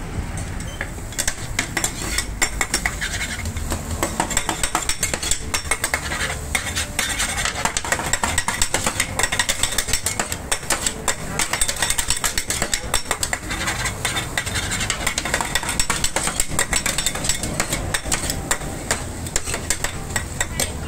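Two metal spatulas clattering, scraping and chopping rapidly and irregularly against a flat steel griddle as pad thai noodles and egg are stir-fried.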